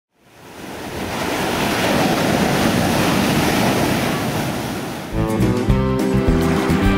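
Ocean surf and waves fading in from silence as a steady rush. About five seconds in, guitar music begins.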